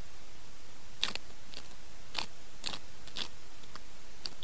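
Close-miked eating by hand: short, sticky, wet clicks about every half second as a mouthful is chewed and rice with sambal-coated sardine is squeezed between the fingers.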